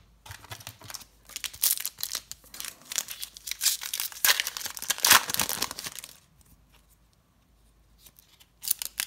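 A trading-card pack wrapper being torn open by hand, ripping and crinkling in a run of crackles for about six seconds. A few short clicks follow near the end as the cards are handled.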